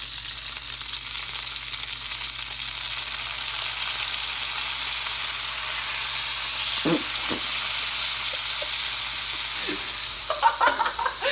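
Beef burger patty sizzling in grease in an electric skillet, a steady hiss that grows a little louder about four seconds in. A couple of short knocks about seven seconds in as a spatula is pushed against the patty.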